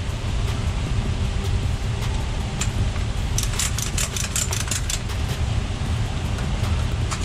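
Engine idling steadily, with two runs of quick metallic clicks from a strap ratchet being worked on the trailer's side, about three and a half seconds in and again near five seconds.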